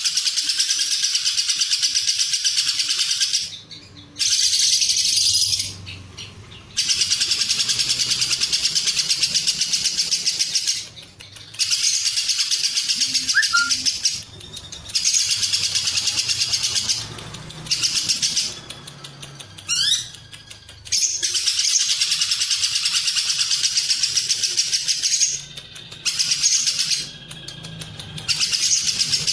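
Lovebird singing its long 'ngekek' song, a loud, high, rapid chattering trill with cililin song worked into it. The song comes in bouts of several seconds, broken by short pauses of about a second.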